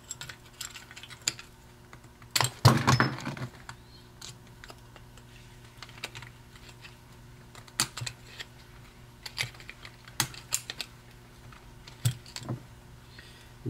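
Screwdriver tip and fingers working the brush springs and brushes on the brush plate of a 12-volt Ford tractor starter: scattered light metallic clicks and ticks, with a louder clatter about two and a half seconds in.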